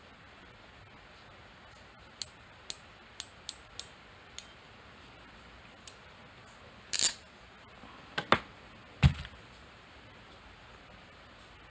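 Ratcheting wire crimper clicking step by step as it closes on a ring terminal over a red wire, about seven clicks, then a louder snap about seven seconds in. A few harder knocks follow near the end as the tool is set down.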